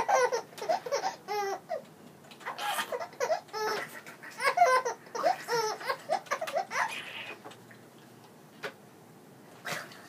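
A 16-week-old baby boy laughing in repeated short bursts of giggles, dying away about three-quarters of the way through; two short clicks near the end.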